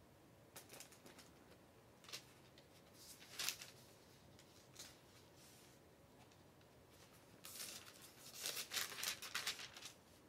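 Bible pages being turned while looking for a passage: a few single soft page turns, then quicker flipping and rustling of the thin paper over the last few seconds.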